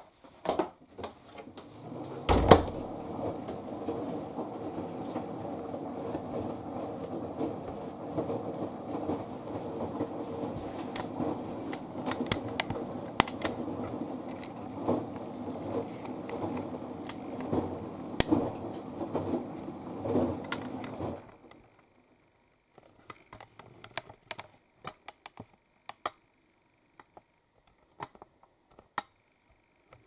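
Clothes rustling as laundry is handled and loaded into a tumble dryer's drum, with small clicks throughout and a single thump about two seconds in. The rustling stops about twenty seconds in, leaving scattered light clicks and knocks.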